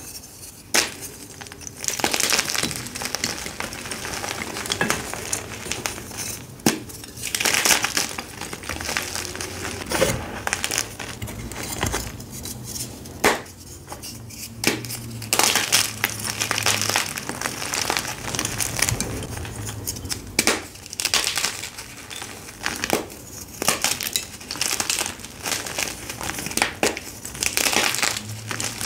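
Dyed blocks of soft gym chalk being crumbled by hand: a steady run of irregular crunches and gritty scrapes as fingers break and rub at the blocks, then chunks squeezed and crushed in the fists near the end.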